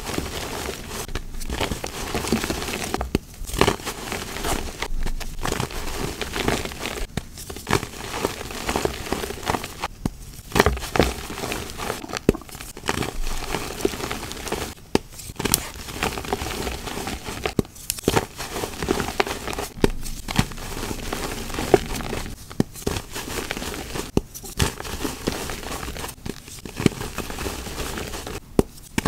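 Blocks of gym chalk being squeezed and crushed in bare hands: a dry crunching and crumbling, broken by brief pauses every couple of seconds between squeezes.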